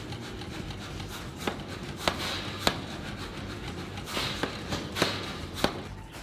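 Blacksmith shop work: about six sharp knocks at uneven spacing, with two short bursts of hiss and a steady low hum underneath.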